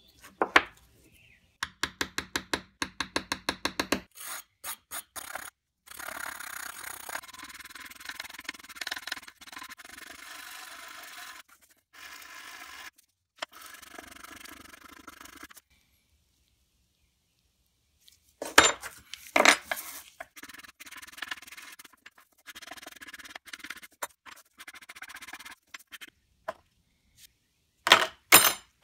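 Quick, evenly spaced light hammer taps, about seven a second, peening the pins that hold a knife's nickel silver bolster to its brass liner. Then a long scrubbing rasp with short pauses as a small brush scours loose surface rust off the rusty steel blades and springs, followed by scattered sharp clicks and knocks of small metal parts and a plastic tray being handled.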